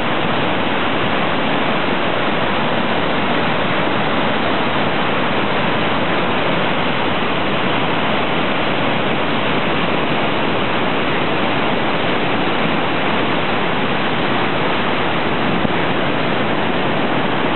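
Loud, steady rushing of a large river waterfall and rapids, whitewater pouring over rock ledges.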